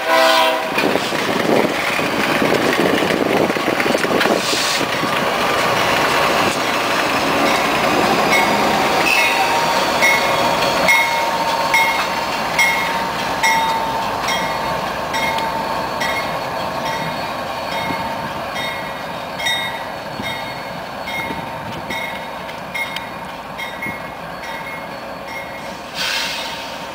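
CSX diesel freight train rolling past at close range, locomotives then cars on steel wheels, with the last moment of a locomotive horn blast cutting off right at the start. Through the second half the wheels clickety-clack over a rail joint about once every 0.7 s, with a thin steady wheel squeal for several seconds in the middle.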